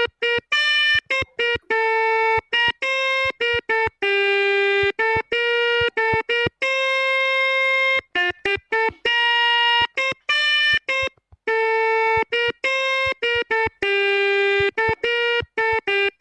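Telolet horn playing a melody note by note: single-pitched horn tones, some short and some held over a second, each starting and stopping sharply with brief silent gaps between them.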